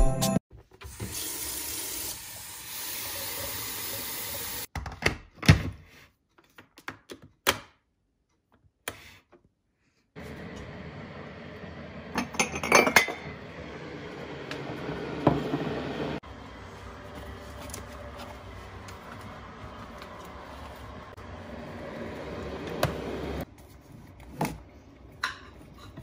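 Kitchen sounds of making a hot drink: water running, and the clinks and knocks of a ceramic mug and small bottles being handled and set down on a counter and shelf.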